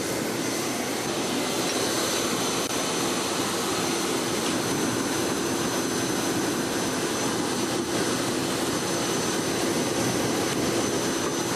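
Air blower feeding a brake-drum coal forge, a steady rushing noise with a low hum and a thin high whine, as the fire is blown hot to bring a piece of steel up to forging heat.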